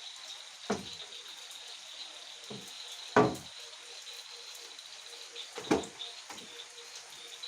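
Four short, sharp knocks at uneven intervals. The loudest comes about three seconds in and rings briefly. A steady high-pitched tone runs underneath.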